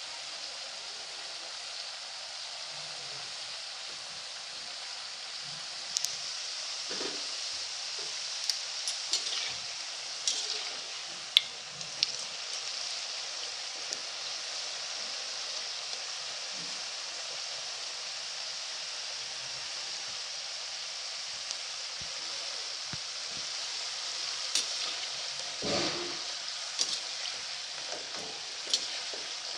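Namak pare, strips of maida dough, sizzling with a steady hiss as they deep-fry in hot oil in a metal kadhai. A metal spoon clicks and scrapes against the pan several times, about a quarter of the way in and again near the end.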